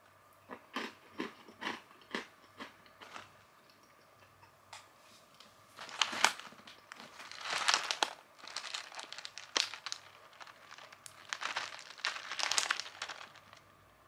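A crunchy snack being chewed, several crisp crunches about two a second, then a foil snack packet crinkling and rustling loudly as it is picked up and handled.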